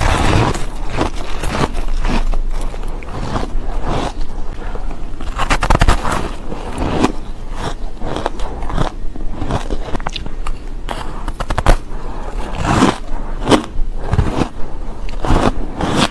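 Biting into and chewing a soft, powdery block of frozen shaved ice: dense crunching and crackling, with louder bites every few seconds.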